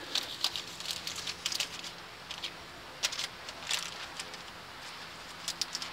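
Parchment paper crinkling and rustling in irregular bursts as it is pressed down onto a smoker's wire rack, under a raw hamburger pizza crust.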